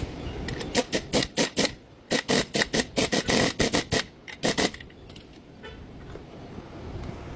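Power tool run in quick short bursts, about five a second, in three groups with a longer run in the middle, on shock-absorber mounting hardware.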